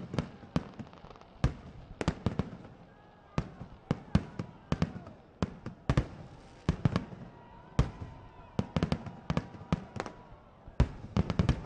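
Aerial fireworks going off in a rapid, irregular string of sharp bangs and pops, many coming in quick clusters of several shots.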